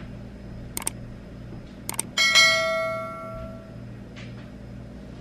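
Subscribe-button animation sound effect: two short clicks about a second apart, then a bright notification bell that rings and fades away over about a second and a half.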